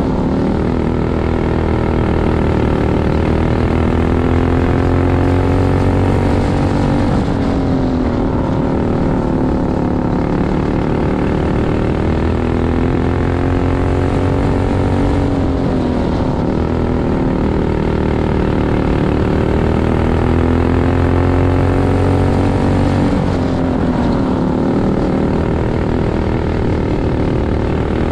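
Racing kart engine heard up close from on the kart, running hard around laps: its pitch climbs steadily along the straights and dips sharply three times, about every eight seconds, as the driver lifts for the turns.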